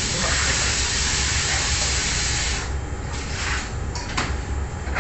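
Kitchen tap running into a stainless steel bowl being rinsed, a steady splashing hiss. About two and a half seconds in, the sound drops to a softer, uneven splash, with a couple of light clicks near the end.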